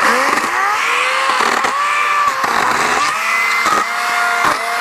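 Battery-powered 40-volt electric chainsaw whining up to speed and cutting dry dead red oak limbs, its pitch dipping briefly several times under load and recovering.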